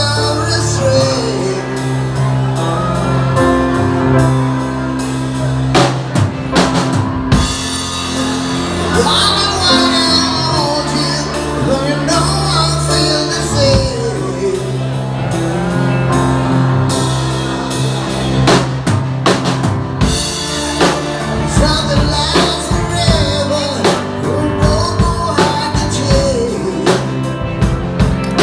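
Music: a song with a singing voice over a drum kit and sustained bass notes.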